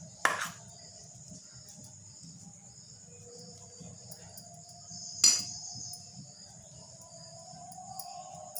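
A metal spoon clinking sharply twice against a stainless steel bowl, about five seconds apart, each strike ringing briefly. A steady high-pitched drone runs underneath.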